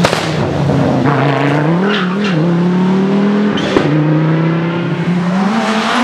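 Audi quattro rally car's five-cylinder engine running hard through a stage, the revs rising and falling. The pitch drops in steps at gear changes, one about four seconds in with a sharp crack from the exhaust, then climbs again near the end.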